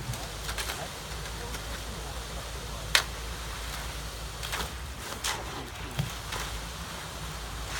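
Work on a concrete pour: a steady low machine hum from the pumping runs under scattered sharp knocks and scrapes of tools in wet concrete. The loudest knock comes about three seconds in, and a few smaller ones follow over the next few seconds.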